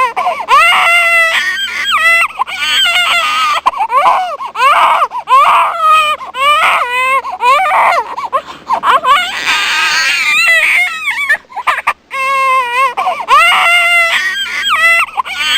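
Infant crying: a run of high, wavering wails, one after another with short breaths between, and a brief pause about twelve seconds in.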